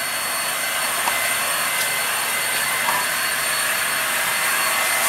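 Electric heat gun running, its fan blowing a steady rush of air with a faint high whine, held over a wet liquid powder-coat panel to drive the water out of the coating.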